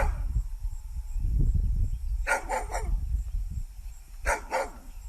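A dog barking: three quick barks a couple of seconds in, then two more near the end, over a steady low rumble.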